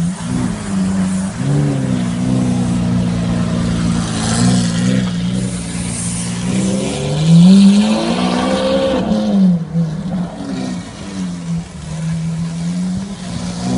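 Lamborghini Aventador LP700-4's V12 engine idling, with a few short throttle blips. About eight seconds in comes one longer rev that rises and falls back, the loudest moment, before it settles back to a steady idle.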